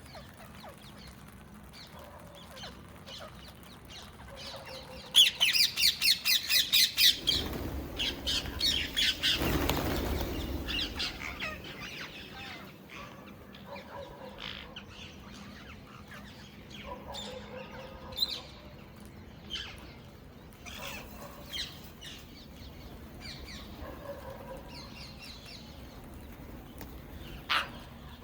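Indian ringneck parrots calling: a rapid run of shrill screeches, about four a second, starts about five seconds in, followed by scattered squawks and chirps, with one sharp call near the end. A rushing noise swells and fades just after the run of screeches.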